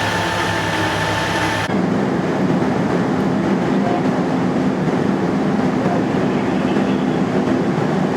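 Heavy diesel engines of fire apparatus running steadily. About two seconds in the sound cuts abruptly from a droning run with steady tones to a denser, lower rumble.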